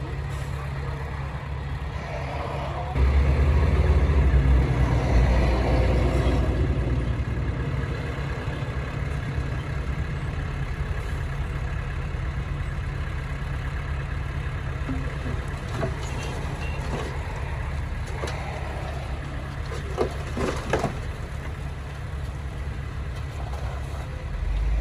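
Heavy diesel engine of earthmoving machinery running with a steady low drone. It grows louder about three seconds in and eases back over the following seconds, with a couple of brief clanks near the end.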